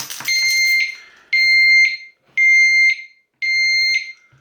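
Oxford Scoot XA5 motorbike disc-lock alarm sounding: a loud, high-pitched electronic beep about half a second long, repeating about once a second.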